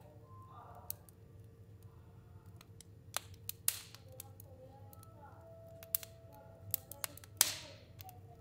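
Fire burning in a stove, crackling with irregular sharp pops and snaps, the loudest about seven seconds in with a short hiss after it, over a faint steady hum.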